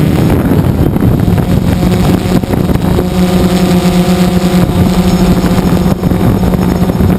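DJI Phantom 2 quadcopter's electric motors and propellers running in flight, heard close up from the camera on the drone as a steady hum mixed with wind rushing over the microphone. A set of higher whining tones joins for a couple of seconds around the middle.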